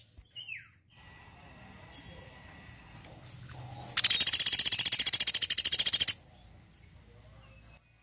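Sunda pygmy woodpecker giving a loud, rapid, high-pitched trill of about twenty notes a second, lasting about two seconds from four seconds in. It is preceded by a couple of faint short calls.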